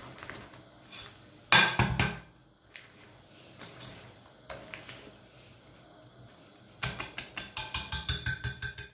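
Wire whisk beating thick cake batter in a glass bowl by hand, the wires clinking and knocking against the glass. A louder knock and scrape comes about a second and a half in, and near the end the strokes speed up into a fast, even ticking, about seven a second.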